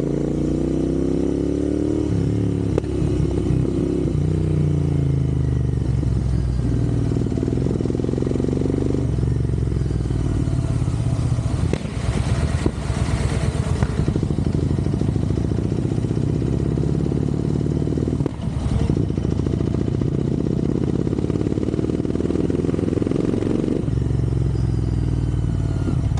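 Royal Enfield Interceptor 650 parallel-twin engine running while riding, its note rising and falling as the bike accelerates and shifts. A burst of rushing noise comes about halfway through, and a shorter one a few seconds later.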